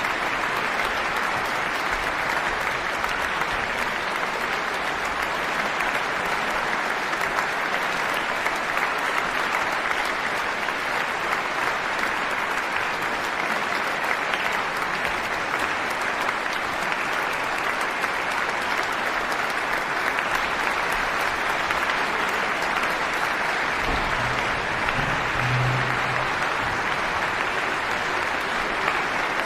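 Audience applauding steadily at the end of a live orchestral performance.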